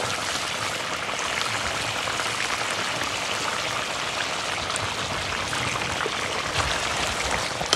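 Chicken and green banana curry boiling in a two-handled metal kadai, a steady bubbling.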